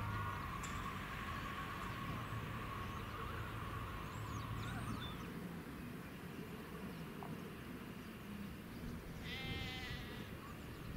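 A Southern Electrostar electric multiple unit runs away into the distance, its steady motor whine and low running hum fading over the first few seconds. A few faint bird chirps follow, then a sheep bleats once, a short wavering call, near the end.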